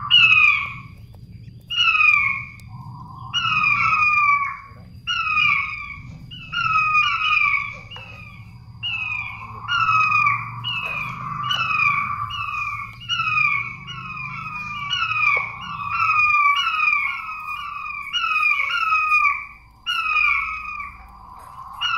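King quail (puyuh batu) calling: piping whistled notes, each sliding downward, given in quick runs of two or three over and over. This is the species' call used as a lure (suara pikat).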